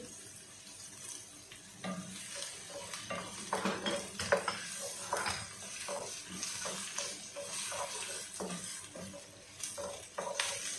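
Wooden spatula stirring and scraping around a coated wok of onions and bay leaves frying in oil. Short, irregular scrapes and soft knocks against the pan begin about two seconds in and go on until the end.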